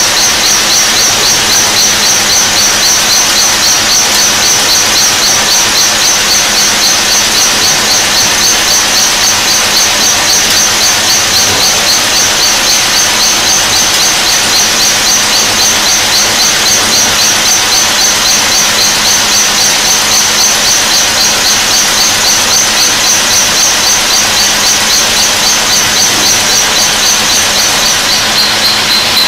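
Burgsmüller L5.4 thread-whirling head cutting a screw element: loud, steady cutting noise with a high whine that pulses a few times a second. The higher part of the whine stops about a second before the end.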